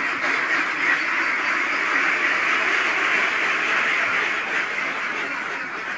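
A large flock of domestic ducks quacking together in a dense, steady chorus.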